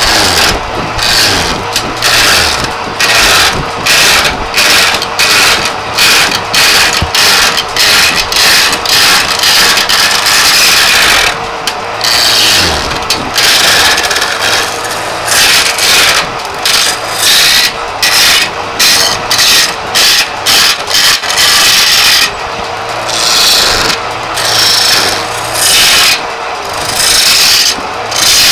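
Hand chisel cutting into a charpai leg blank spinning on a belt-driven wood lathe, in repeated scraping strokes about one and a half a second, with brief pauses between runs. The lathe motor hums underneath.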